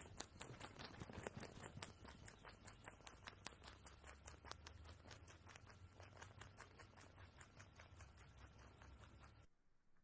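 A rabbit chewing a green stalk close up: a fast, even run of crunchy clicks, about five a second, that stops abruptly near the end.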